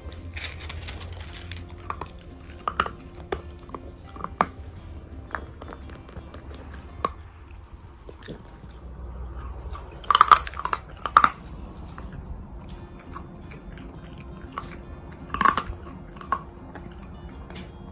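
Beagle puppy crunching and chewing dry food taken from a plastic puzzle toy: scattered crisp crunches, with louder bursts of crunching about ten seconds in and again near the end.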